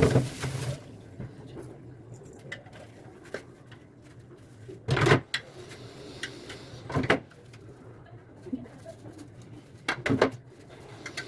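Fridge racks and trays being handled and set down while being cleaned: a few separate knocks and clatters, near the start and about five, seven and ten seconds in, over a faint low hum.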